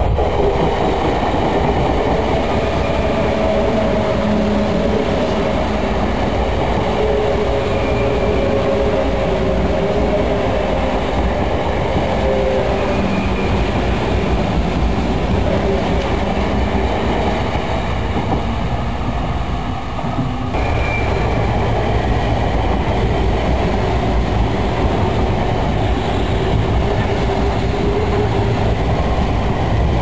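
Sotetsu 9000-series electric commuter train running past at close range: a steady rumble of wheels on rail, with clattering over the rail joints and a faint whining tone. About twenty seconds in, the sound changes abruptly to another electric train passing.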